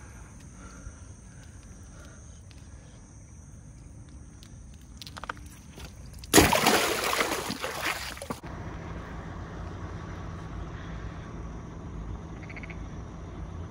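A sudden loud splash of water in a shallow stone-edged pond, dying away over about two seconds, over a faint steady insect drone. After it the drone gives way to a steady low hum.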